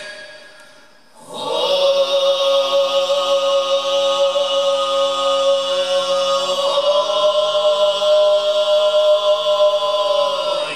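Mongolian höömii throat singing: about a second in, one long held drone begins, with a strong overtone ringing above it. The drone shifts pitch slightly about two-thirds of the way through and fades out at the end.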